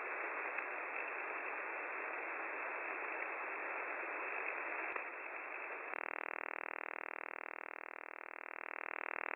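Shortwave receiver tuned to the 20-meter amateur band: band-limited static hiss, then about six seconds in a rapid pulsing signal starts, about ten pulses a second. The pulsing sounds like the 1970s Soviet 'Woodpecker' over-the-horizon radar.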